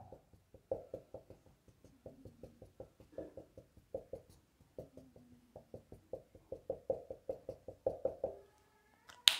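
Marker tip tapping dots onto a whiteboard: a fast, irregular run of light taps, several a second, with one sharper click just before the end.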